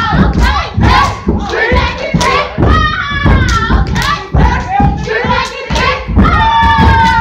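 Step team stepping: boots stomping and hands clapping and slapping in a fast, dense rhythm, with singing voices over it.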